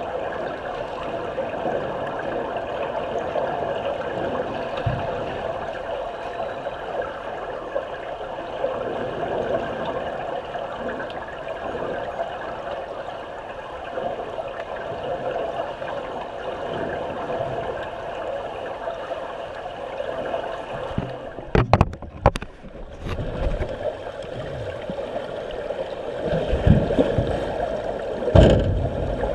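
Muffled, steady rush of pool water heard through an underwater camera's housing. About three-quarters of the way through comes a short cluster of sharp knocks, and near the end louder surging whooshes as swimmers kick and stroke close past the camera.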